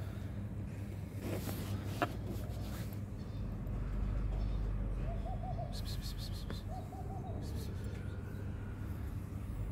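Short bubbling coos from a dove, twice in the middle, over a steady low hum. A few scattered clicks and rattles come near the start and about six seconds in.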